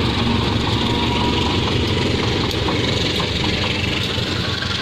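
Two coupled KAI diesel-electric locomotives, a CC 201 and a CC 203, passing with their diesel engines running steadily. A few faint clicks come through about midway.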